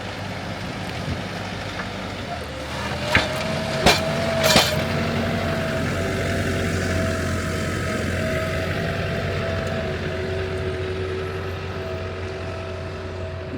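Tractor engine running steadily with a faint whine over it, and a few sharp clicks about three to four and a half seconds in.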